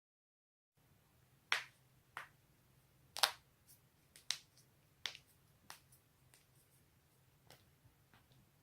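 Human joints cracking: a string of sharp pops, roughly one a second, with a couple of fainter ones near the end.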